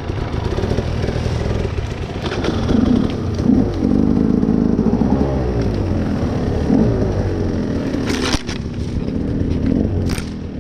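Dirt bike engine running slowly off-road, its pitch rising and falling as the throttle is worked on and off. Two short sharp crackles cut through near the end.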